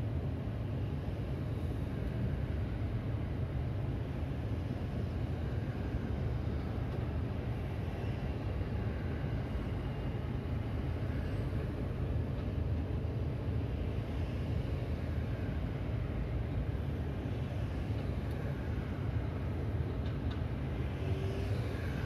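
Steady low rumble of city traffic and street noise, without a clear single event.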